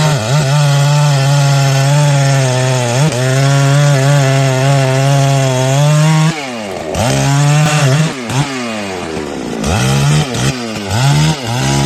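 Two-stroke chainsaw cutting wood at full throttle, its pitch steady for about six seconds with two brief dips. Then it drops off throttle and revs up and down several times.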